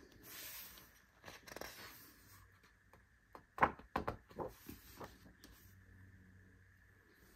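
Glossy pages of a thick photobook handled by hand: soft paper swishes and sliding in the first couple of seconds, then a cluster of crackles and taps around the middle as a page is turned over.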